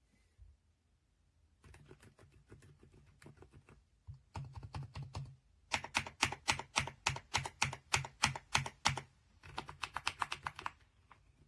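Typing on a mechanical keyboard: quick runs of key clicks, about six strokes a second at their fastest, in bursts with short pauses between them, growing louder after the first few seconds.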